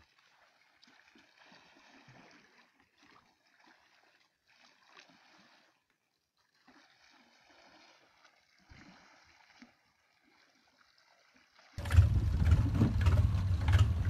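Faint water sounds at the boat's side, close to silence, then about twelve seconds in a boat engine's loud steady low running cuts in abruptly.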